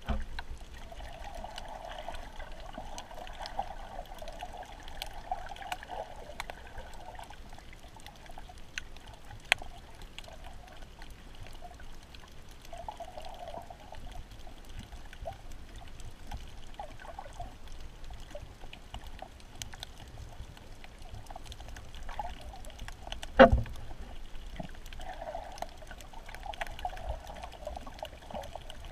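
Underwater sound heard through a camera's waterproof housing: a muffled watery hiss that swells and fades in long patches, with scattered sharp clicks. There is one loud knock about 23 seconds in.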